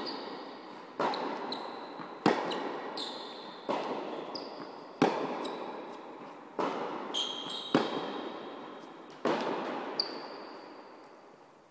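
Tennis rally in a large indoor hall: sharp racket hits and ball bounces about once a second, each ringing out in long reverberation. Short high squeaks of shoes on the court come in between. The last hit is about ten seconds in, and its echo dies away.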